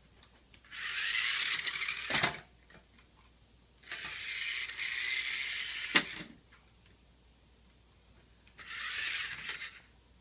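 Toy remote-control car's small electric motor and gears whirring in three short bursts as it drives, with a sharp knock at the end of the first burst and a louder one near the end of the second, as the car bumps into something.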